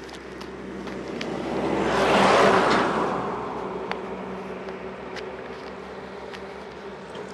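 A vehicle passing by: a rushing noise that swells to a peak about two and a half seconds in, then fades away.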